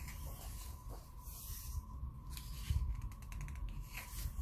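Paper pages of a paperback coloring book being turned by hand: soft rustling swishes, with a quick run of small ticks about three seconds in as pages flick past the fingers.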